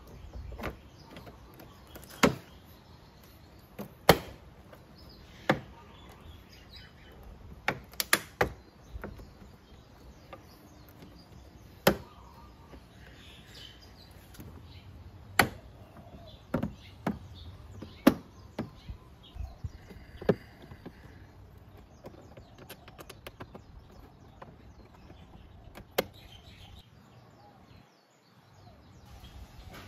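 Plastic side skirt of a Honda PCX 150 scooter being pressed into place, its plastic tabs and clips clicking and knocking into their slots. About a dozen sharp clicks come at irregular intervals.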